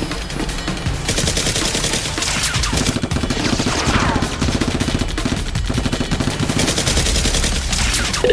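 Rapid-fire gunfire sound effects in two long bursts, one starting about a second in and one near the end, over background music.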